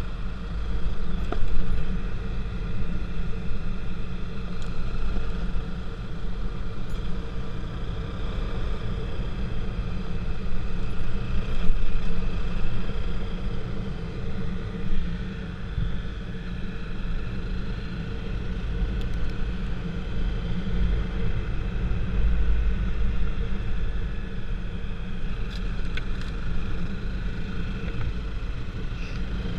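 A moving vehicle running steadily, with a heavy low rumble and a few steady tones above it and no big changes in speed.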